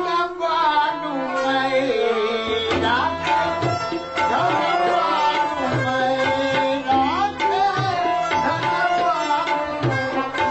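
Tabla drumming with a harmonium melody in Afghan classical style. Gliding sustained notes run above the steady tabla strokes.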